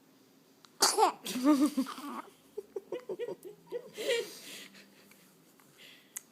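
A person laughing: a sudden loud breathy outburst about a second in, then a run of short laughs, with another breathy burst about four seconds in.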